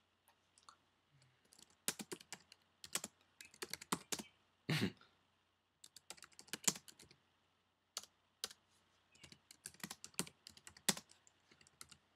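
Typing on a computer keyboard: irregular runs of quick key clicks broken by short pauses.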